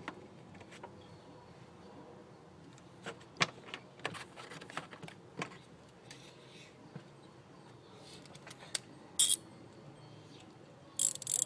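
Scattered metallic clicks and clinks of hand tools being handled (ratchet, extension, spark plug socket), with a brief jingling rattle about 9 seconds in and another near the end.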